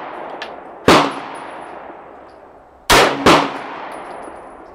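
Glock 19 9mm pistol fired three times: one shot about a second in, then two in quick succession near three seconds, each followed by a decaying echo.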